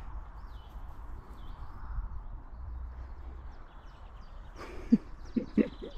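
Wind buffeting the microphone as a steady low rumble, with faint bird chirps, and a few short squeaky cries about five seconds in.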